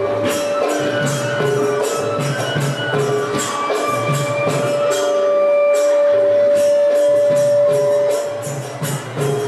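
Live stage-play accompaniment music: metal percussion struck in a steady beat, with drumming and long held melody notes.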